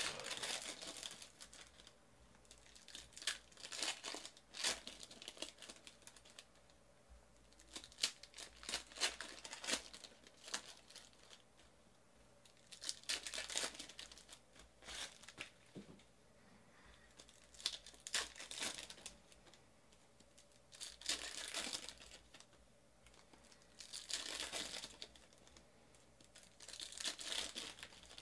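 Panini Prizm basketball retail card pack wrappers being torn open and crinkled, in about eight short crackly bursts a few seconds apart.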